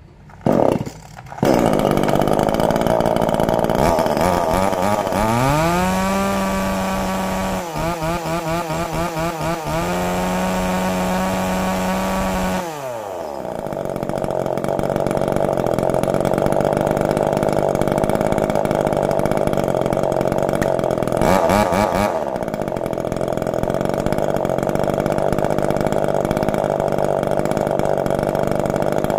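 Small two-stroke top-handle chainsaw (a new CS2500 with a 12-inch bar) fires up near the start and idles. About five seconds in it is revved to full throttle, its note rising steeply, and holds high revs for several seconds with a wavering, stuttering pitch before dropping back to idle. Around twenty-one seconds there is one more short blip of the throttle, then it idles steadily.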